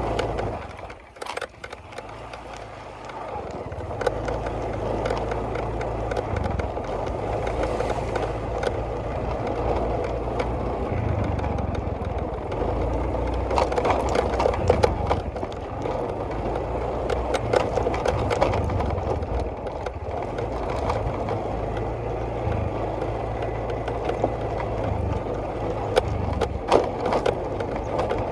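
A small vehicle engine running steadily, its low hum shifting up and down in steps, with frequent rattles and knocks as it travels over rough ground.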